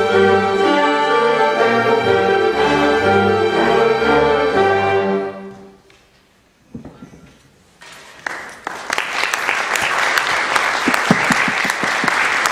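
Orchestra's strings playing the closing bars of a piece, ending on a final chord that dies away about five to six seconds in. After a short hush, audience applause starts about two seconds later and keeps going.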